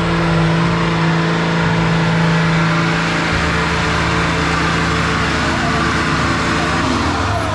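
Modified off-road 4x4's engine held at high revs as it strains through deep mud, a steady, loud engine note with a shift in its low rumble about three and a half seconds in.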